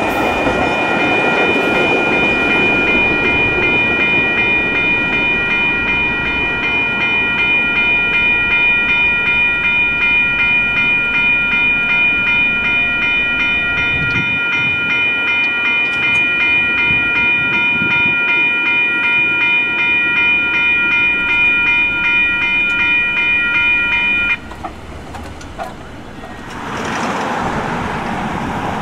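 Railroad crossing bell ringing in rapid, even strikes while the last cars of a Metra bilevel commuter train roll past, the train's noise fading over the first few seconds. The bell cuts off abruptly about 24 seconds in as the crossing clears, and a car drives past near the end.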